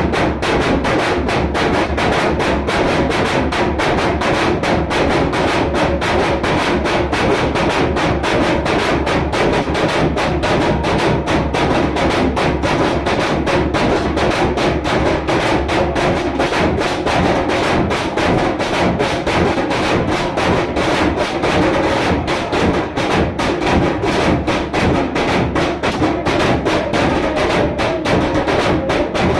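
Music driven by a rapid, steady drum beat, loud and unbroken throughout.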